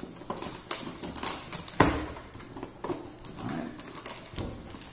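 Stainless butter knife slitting and scraping the packing tape on a cardboard box, with irregular taps and scratches against the cardboard; the sharpest knock comes nearly two seconds in.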